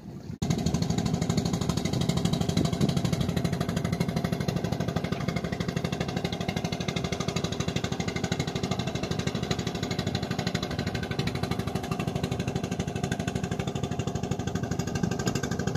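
Boat engine running steadily, with a fast, even pulse; it starts abruptly about half a second in.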